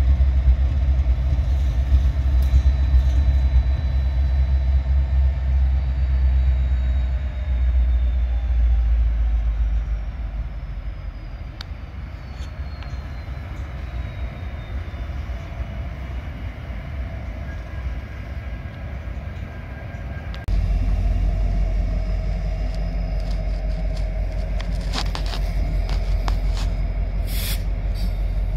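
Illinois Central EMD SD70 diesel locomotives running in a rail yard: a steady low diesel rumble that eases off about ten seconds in and comes back suddenly louder about twenty seconds in. A faint high whine falls slowly in pitch early on, and a few sharp clicks come near the end.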